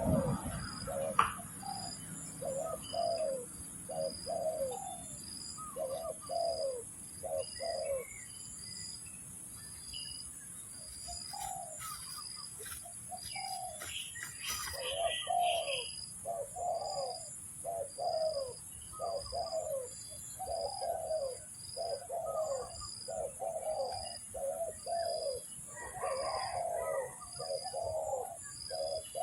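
Spotted doves cooing in repeated phrases of several low, falling notes, with a lull about midway before the calls come thick again. A high, evenly spaced chirp repeats about once a second in the background, and there is a single sharp click about a second in.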